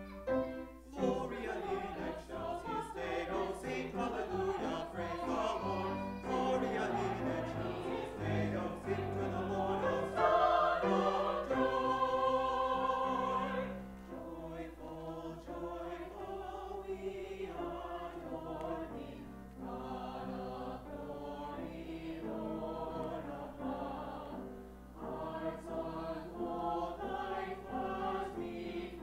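Small mixed church choir of men and women singing an anthem, with grand piano accompaniment. The singing is fuller for the first half, then drops to a softer passage about halfway through.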